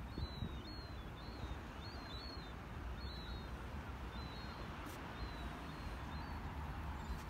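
Birds chirping: short, high calls repeated every half second or so, thinning out after the first few seconds, over a steady wash of wind noise on the shore.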